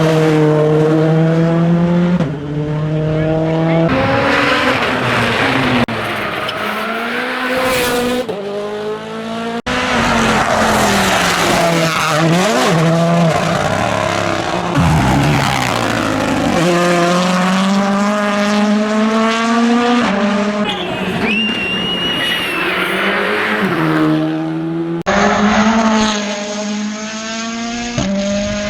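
Rally cars at speed on a tarmac stage, a run of separate passes. Each engine revs up and drops back again and again as the car brakes and accelerates through the gears. There is a brief high-pitched squeal about two-thirds of the way through.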